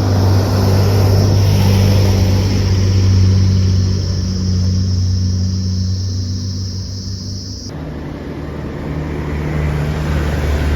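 A motor vehicle's engine runs steadily on the move, a low hum under road and wind noise. About eight seconds in, the sound changes abruptly to a different stretch of driving.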